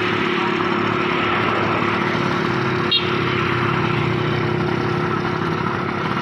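Engine of a home-built light aircraft running steadily during a ground engine test. A single sharp click about halfway through.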